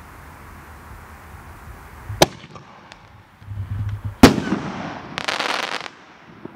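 Aerial firework going off: a sharp bang about two seconds in, a louder burst about two seconds later, then a brief spell of crackling.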